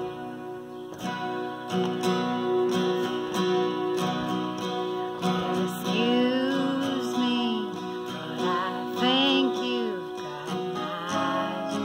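Acoustic guitar, capoed, strummed in an even rhythm of chords; from about five or six seconds in, a woman's voice joins, singing a melody with vibrato on held notes.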